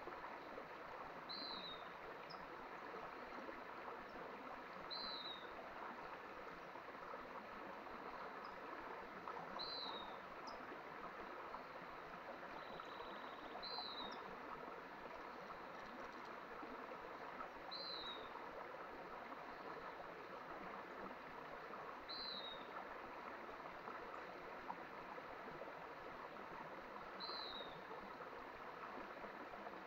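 Mountain stream flowing steadily, with a bird repeating a short, falling call about every four seconds.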